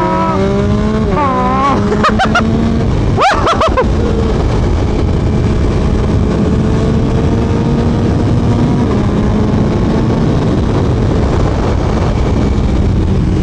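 Yamaha MT-09's 890 cc three-cylinder engine through an Akrapovic full-system exhaust under hard acceleration, its pitch climbing and dropping several times in the first few seconds as it shifts up through the gears, with sharp crackles at the shifts. It then settles into a near-steady drone at cruising speed under heavy wind rush.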